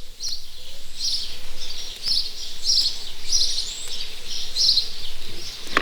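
Birdsong: a bird's high chirping call repeated evenly, somewhat under two a second.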